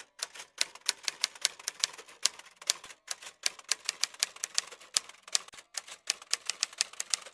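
Typewriter keys clacking in quick, uneven strokes, about four or five a second, with two short breaks. It is a typing sound effect that keeps time with text typing itself out on screen.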